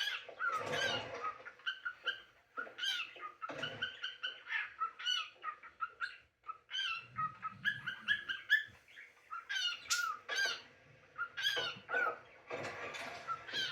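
Cockatiel chirping: a quick string of short, bending whistled chirps, several a second, with a brief pause about six seconds in.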